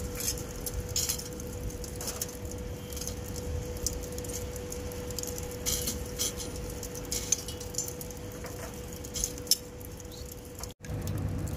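Scattered light clinks and clicks of small hard objects, about ten in all, over a steady hum. Near the end the sound drops out abruptly and a different low background begins.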